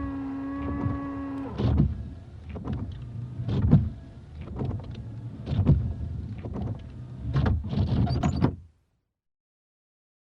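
Car windshield wiper mechanism: the wiper motor whines steadily for about a second and a half, then irregular knocks and thumps follow as the wipers sweep, until the sound stops abruptly near the end.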